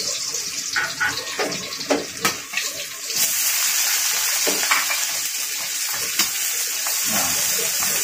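Ingredients sizzling in hot oil in a steel wok, with crackles and the scrape of a metal spatula. About three seconds in, the sizzle jumps to a loud, steady hiss.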